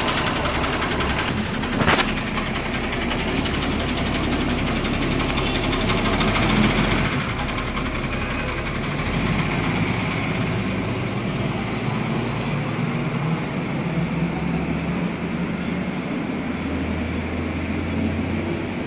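Yuchai YC6J220-50 inline-six diesel engine of a King Long coach running as the coach pulls away. It is first heard close to the engine grille, then recedes into street traffic. There is a sharp clack about two seconds in.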